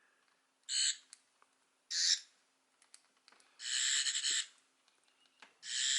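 Eleventh Doctor sonic screwdriver toy playing its electronic sonic sound effect as its activation buttons are pressed: four short high-pitched bursts, the last two longer, with faint clicks between them.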